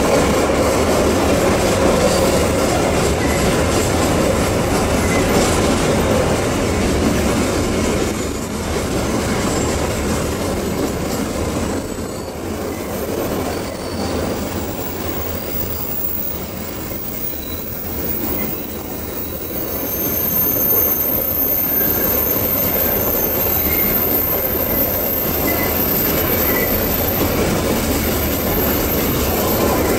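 Empty coal hopper wagons of a long Babaranjang coal train rolling slowly past on a curve, a steady rumble of steel wheels on the rails. A thin, high-pitched wheel squeal from the curve comes in about two-thirds of the way through.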